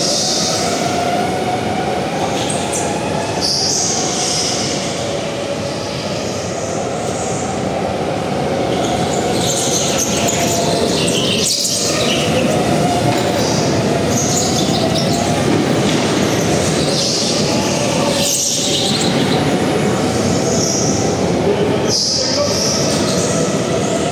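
Go-kart running on the track, its motor note wavering up and down continuously, with short high squeals coming again and again.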